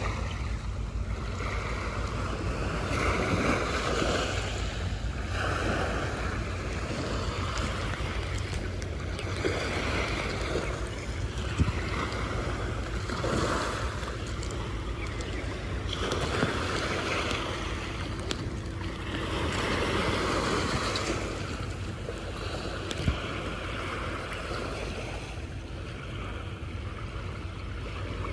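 Small waves washing up a pebbly sand shore and drawing back, swelling and fading every few seconds, with wind rumbling on the microphone. Two brief clicks stand out, near the middle and about two-thirds of the way through.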